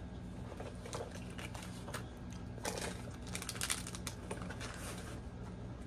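Light clicking and rustling of trading cards and cardboard and plastic packaging being handled, with a quick run of clicks about three seconds in, over a steady low hum.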